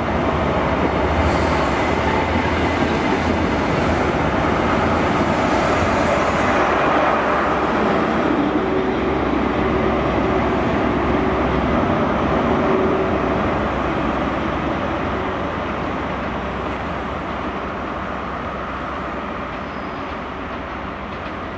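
Great Western Railway High Speed Train pulling away past the platform: the coaches roll by with steady wheel and rail noise, then the diesel engine of the rear Class 43 power car passes at about ten seconds. The sound then fades gradually as the train draws away.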